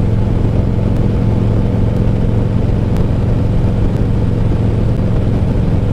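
Motorcycle engine running at a steady cruising speed, with wind rushing over the microphone.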